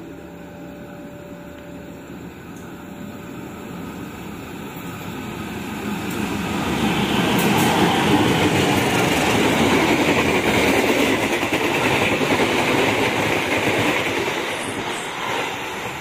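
Diesel-hauled passenger train passing close by through a station at speed. The wheel and rail noise builds as it approaches, is loudest for several seconds around the middle, then eases as it draws away.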